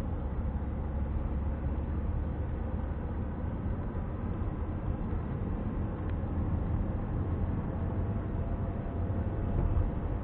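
Car driving along a road, heard from inside the cabin: steady low engine and tyre noise.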